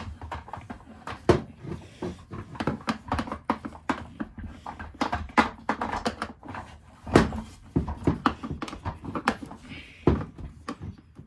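Irregular clicks, knocks and rattles of the plastic housing and parts of a Dirt Devil upright vacuum being handled and taken apart by hand, with a few louder knocks about a second, five, seven and ten seconds in.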